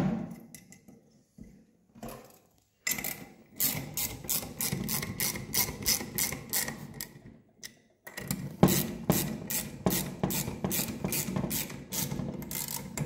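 Ratchet with a 10 mm socket clicking in two long, fast runs of evenly spaced clicks, split by a short break near the middle, as bolts are tightened down.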